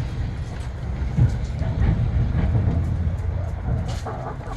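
Wind buffeting the microphone as a steady low rumble, with scattered light taps of hens pecking at a hanging cabbage.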